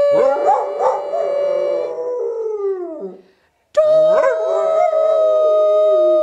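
A dog howling along to a person singing long held notes of a scale. The dog's wavering howl runs over two held notes, broken by a brief silence about three and a half seconds in.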